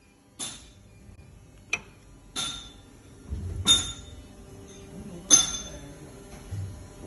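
Five sharp metallic clinks and knocks at uneven intervals, each ringing briefly at the same high pitches, over a low hum at an injection molding machine.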